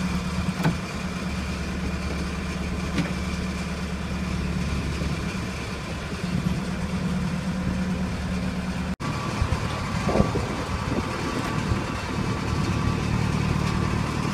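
Engine of a front-end loader running steadily at a low, even idle while it hoists a truck engine on a chain from its bucket.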